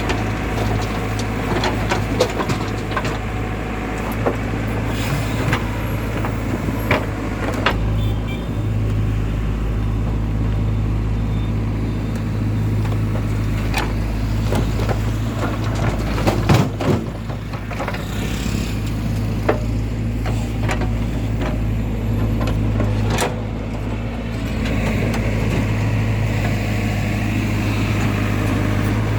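Heavy diesel machinery running steadily, a backhoe loader and tractor at a loading site, with scattered knocks and clanks and a louder cluster of them about halfway through.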